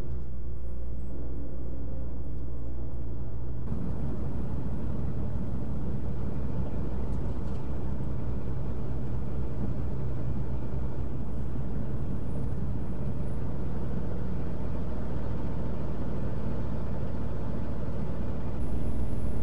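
Steady drone of a semi-truck's engine and tyres at highway speed, heard inside the cab; the noise grows fuller about four seconds in.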